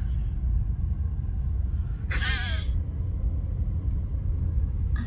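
Steady low rumble of a car being driven, heard from inside the cabin. About two seconds in there is a short vocal exclamation.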